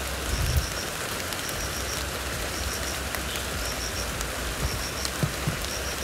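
Gas hissing steadily out of a glass bottle of homemade, naturally carbonated ginger beer as its cap is slowly loosened. The hiss is the sign of pressure built up by fermentation inside the bottle.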